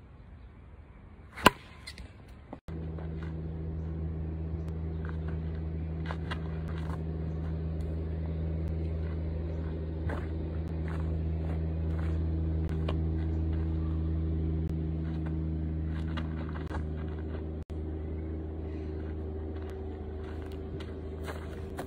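One loud sharp crack about a second and a half in, a bat hitting a softball. Then a steady low motor hum runs on, with scattered light knocks.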